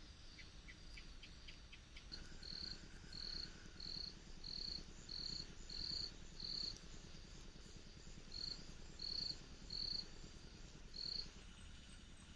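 Short high-pitched chirps from a small calling animal, repeating about one and a half times a second in two runs, the second starting about eight and a half seconds in, over a faint steady background.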